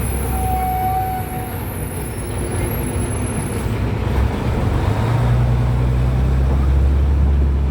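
Tour vehicle's engine running with road noise, heard from inside the vehicle. About five seconds in, the engine note rises and grows louder.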